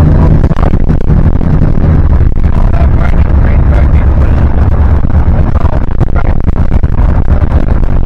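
Motor vehicle running: a loud, steady low drone of engine and road noise, with wind buffeting the microphone.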